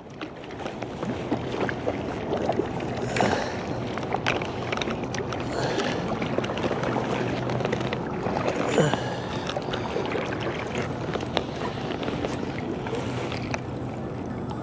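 River water rushing steadily, with scattered small clicks and splashes.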